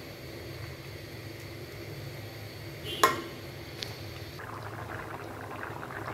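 A pot of curry bubbling on the stove over a steady low hum, the bubbling turning busier in the last second and a half. About three seconds in, a metal ladle clinks once against the metal pot with a short ring, followed by a lighter tap.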